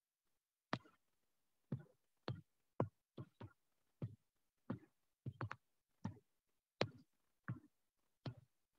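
Stylus tip tapping on a drawing tablet as pen strokes are made: about fifteen short, sharp taps at irregular intervals, some in quick pairs.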